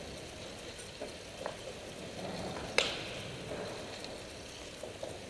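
Track bicycles riding past on the wooden boards of an indoor velodrome: a steady hiss of tyres and moving air in a reverberant hall, with a sharp click a little under three seconds in.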